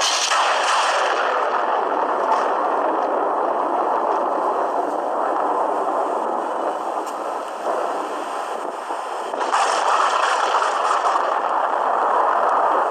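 Thunder heard through a phone's microphone: a sudden clap right at the start, a rolling rumble, then another loud peal about nine and a half seconds in.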